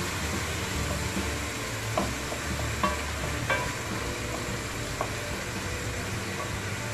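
Wooden spoon stirring chopped tomatoes and onions as they fry in oil in a pot, over a steady sizzle, with a few knocks of the spoon against the pot.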